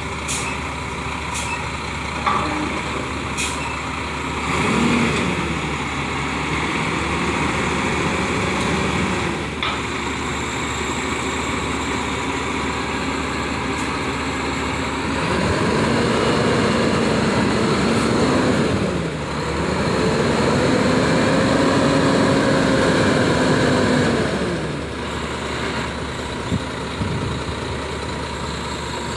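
A roll-off truck's engine running, revving up and down under load while its hoist sets a roll-off dumpster down, loudest in a long rev about two-thirds of the way in. Sharp metal clanks come a few times in the first ten seconds.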